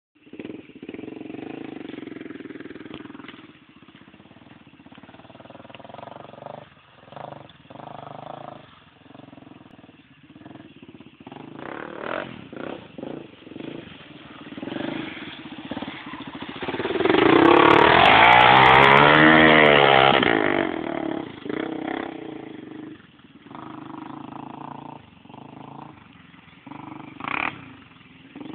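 Honda 400EX quad's single-cylinder four-stroke engine revving up and down as it rides a trail, growing loud as it comes past close by about two-thirds of the way through, then falling back.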